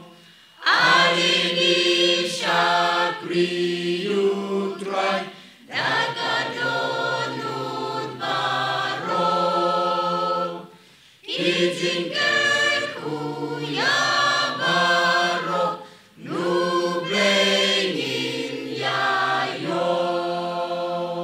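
Mixed choir of women and men singing a Khasi welcome hymn, in phrases broken by short pauses.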